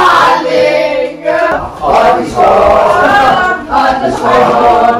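Several men and women singing a Christmas carol together, in phrases with short breaks between lines.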